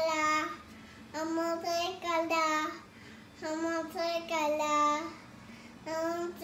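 A toddler singing in a high sing-song voice without clear words: several short phrases of held notes with pauses between them.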